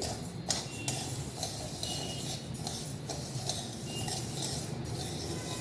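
Dry raw rice and moong dal being stirred as they roast in an aluminium kadai, with a steady light scraping of the grains and scattered small clinks of the utensil against the pan.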